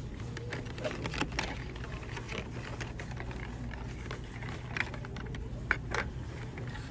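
Scattered light clicks and rustles of plastic claw clips on cardboard cards being handled on store peg hooks. A steady low hum of store background runs underneath.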